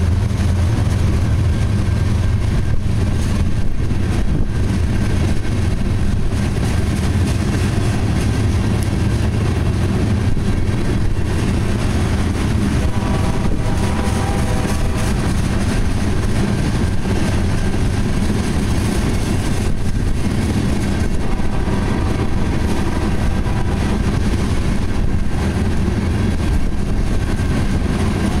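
Loaded tank cars of a freight oil train rolling past close by: a steady low rumble of steel wheels on the rails, with a brief higher tone about halfway through.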